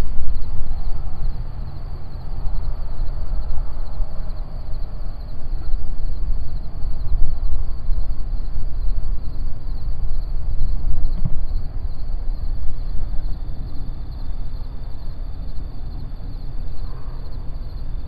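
Insects trilling in a steady high band over a loud, uneven low rumble that rises and falls like wind on the microphone.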